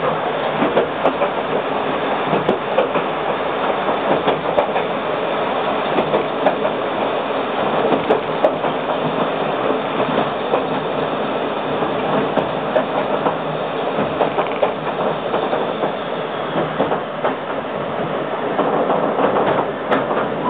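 Former Kintetsu 16000-series electric train running along the line, heard from inside the car: a steady rumble of wheels on rail with scattered clicks and knocks.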